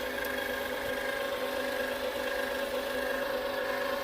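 Cricut Explore Air 2 cutting machine making a loud, steady mechanical hum at one even pitch while loading the cutting mat.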